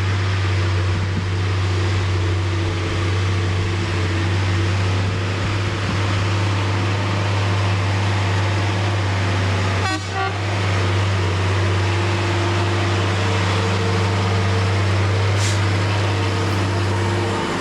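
Truck engine running close by, a loud steady low hum with a brief dip about ten seconds in.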